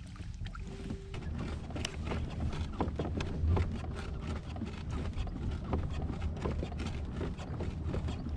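Water sloshing and lapping against a kayak's hull: many small irregular splashes and ticks over a steady low rumble.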